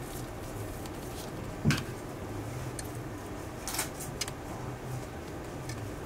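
Metal clicks from the magnet-held titanium handles of a large balisong being handled: one sharp click about two seconds in, then a few lighter clicks a couple of seconds later.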